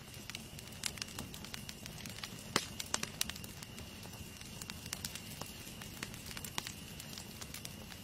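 Wood campfire burning: irregular crackles and sharp pops from the logs over the steady low rush of the flames, with the loudest pops near the middle.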